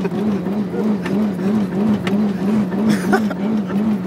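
A small hatchback driving along, heard from inside the cabin: a steady drone of engine and road noise under a hum that wavers evenly about four times a second. There are a few short knocks about one, two and three seconds in.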